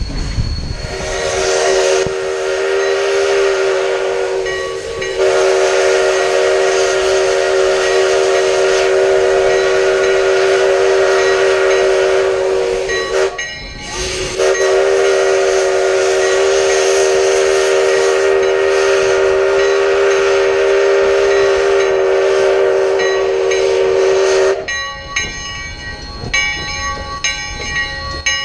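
Steam locomotive No. 3's whistle blown in two long blasts as it nears a road grade crossing, the first lasting about twelve seconds and the second about ten. Near the end the whistle stops and a bell rings steadily.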